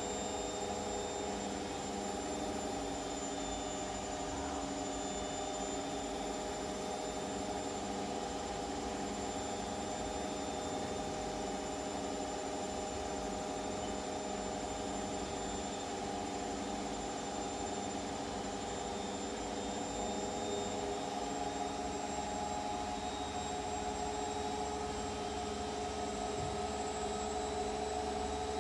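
Washing machine running: a steady motor hum with several held tones over an even mechanical noise.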